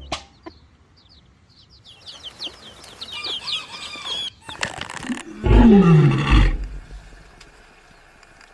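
Animal calls: a quick run of short high chirps, then, a little past the middle, a loud low call lasting about a second that falls in pitch.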